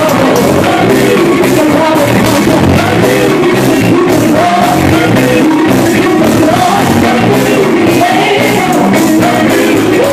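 Live gospel music: a men's vocal group singing loudly into microphones over a band, with a fast, steady beat.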